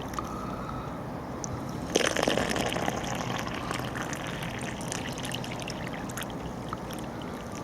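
Water pouring and trickling into the planting holes of freshly set leeks, filling each hole to the top so the soil settles around the roots. The pour gets stronger about two seconds in, then slowly eases.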